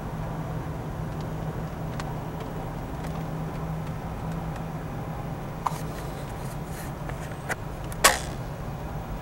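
Low steady hum of a car idling, heard from inside the cabin. A few sharp clicks, the loudest about eight seconds in.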